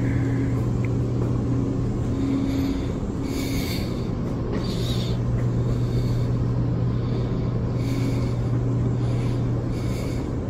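Steady low hum of a building's ventilation system, with faint muffled voices now and then.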